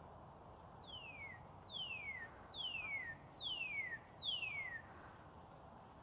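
Male northern cardinal singing: a phrase of five clear whistles, each sliding down from high to lower pitch, repeated a little under once a second, starting about a second in.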